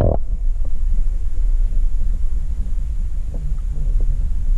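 Steady, muffled low rumble of water noise picked up by a camera held under the water, with almost nothing above the deep rumble. A short muffled voice is heard at the very start.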